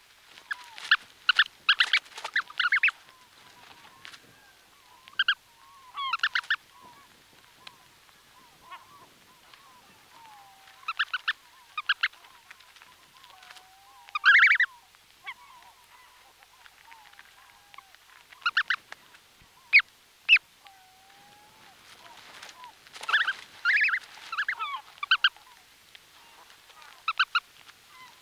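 Brant goose goslings calling from inside their eggs, close up: clusters of short, high peeps in bursts a second or two long, with soft gliding whistles in between.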